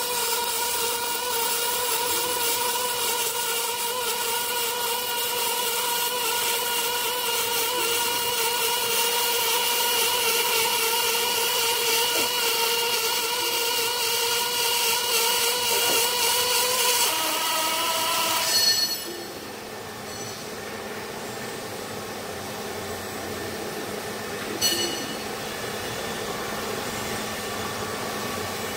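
Robotic MIG welding arc on thick steel plate: a steady hissing crackle with a buzzing hum that steps up slightly in pitch, then cuts off abruptly about 19 seconds in as the weld ends. After that a quieter machine hum remains, with a single sharp click at about 25 seconds.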